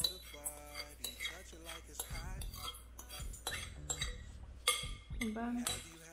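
A spoon clinking and scraping against a glass bowl as sugar is tipped out into a stainless steel bowl of egg yolks: a run of short clinks and scrapes, the sharpest right at the start and a little before the end.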